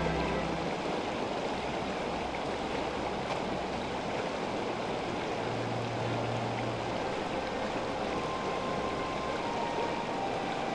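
Shallow river running over stones and riffles, a steady rush of flowing water.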